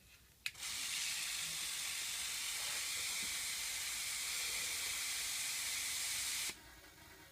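Compressed air hissing out of an air compressor's air system, starting with a click and running steadily for about six seconds before cutting off sharply.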